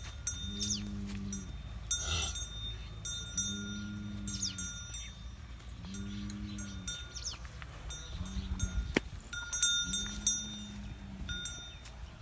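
Small metal bells jingling in quick, irregular clusters, like the bells worn by cattle. A low, steady tone about a second long comes back every couple of seconds underneath.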